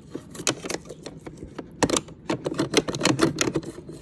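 Bent toothbrush scrubbing inside a fridge's ice dispenser, an irregular run of quick clicks and scratches.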